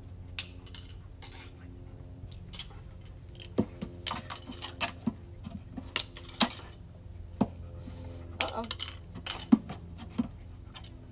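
Irregular light metallic clinks and clicks, a dozen or so, scattered through the last two-thirds over a steady low hum.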